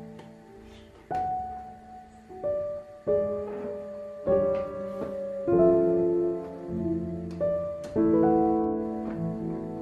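Background piano music: single notes and chords struck one after another at an unhurried pace.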